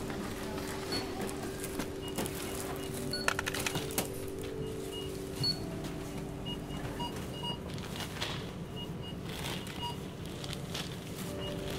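Supermarket checkout counter: groceries and plastic bags handled and set down, with a quick run of clicks about three seconds in and several short high electronic beeps, over a steady low hum.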